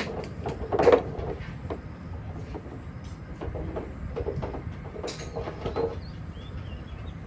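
Golf clubs striking balls: a series of sharp clicks, the loudest at the very start, just before a second in and about five seconds in, over a steady low rumble.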